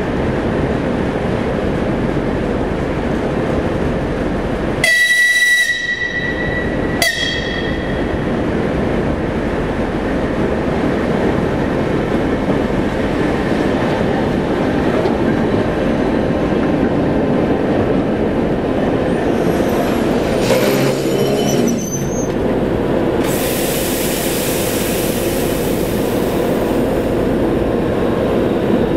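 TEP70 diesel locomotive running its V16 diesel engine steadily as it rolls slowly past. It gives a horn blast of about a second some five seconds in and a short second toot two seconds later. A steady hiss sets in after about twenty-three seconds.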